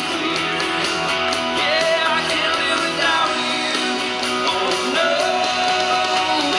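Live band music: a man singing into a handheld microphone over strummed electric guitar.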